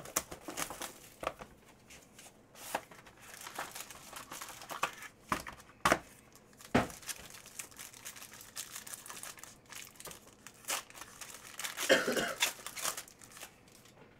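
Foil trading-card pack wrapper being crinkled and torn open by hand: irregular crackles and sharp snaps, with a denser burst of crinkling about twelve seconds in.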